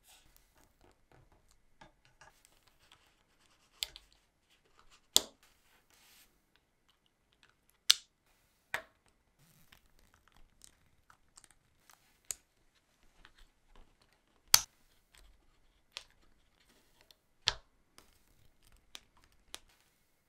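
Small plastic parts of a scale-model BMW boxer engine kit being handled and fitted together: about ten sharp clicks and snaps at irregular intervals, with soft scraping and rustling between them.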